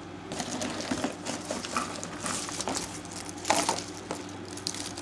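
Packaging and small plastic and metal accessories being handled: crinkling, rustling and scattered light clicks, with a louder rustle about three and a half seconds in, over a steady low hum.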